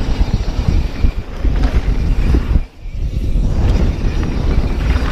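Mountain bike riding fast down a wet trail: wind buffeting the camera microphone over the rumble of tyres, with scattered knocks and rattles from the bike. The noise drops off briefly nearly three seconds in, then comes straight back.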